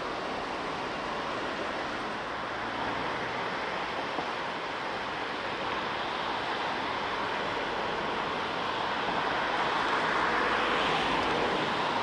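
Steady rush of flowing river water at a weir, swelling a little about nine seconds in.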